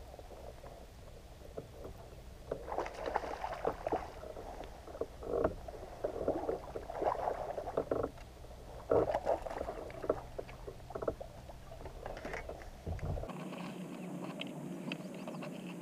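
Irregular knocks, scrapes and rustles of hands, rod and gear against a plastic fishing kayak as a bass is landed and brought aboard. The low rumble stops about 13 seconds in, leaving a steadier hiss.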